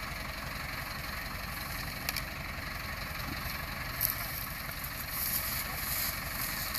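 Massey Ferguson 385 tractor's four-cylinder diesel engine running steadily, a little louder from about five seconds in, with two short clicks near two and four seconds.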